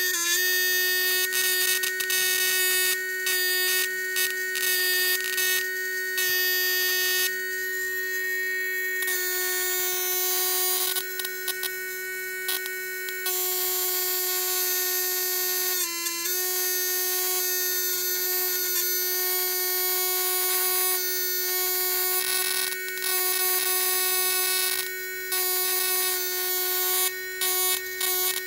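Homemade high-voltage electro-fishing inverter running, giving a steady high-pitched electrical buzz with many overtones. The buzz dips briefly in pitch around the middle and falters for short moments now and then.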